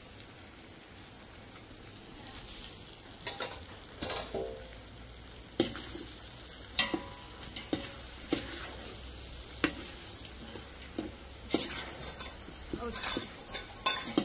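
Chicken sizzling as it fries in a pan, stirred with a spoon that knocks and scrapes against the pan about once a second, with a quicker run of knocks near the end.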